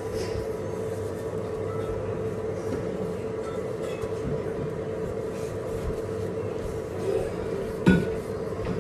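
Steady mechanical hum over a low rumble, with a single sharp knock just before the end.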